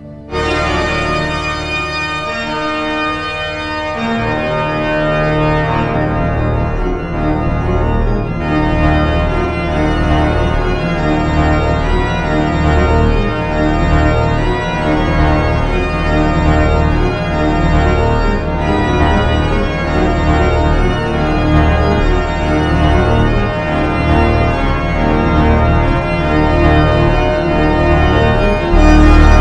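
Organ music playing sustained chords; it starts abruptly just after the beginning and grows fuller and louder a few seconds in.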